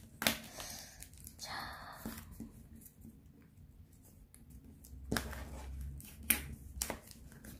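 Square of origami paper being folded and creased by hand, with a plastic ruler pressed and run along the folds: paper rustling and a few sharp clicks and taps, with a quieter stretch in the middle.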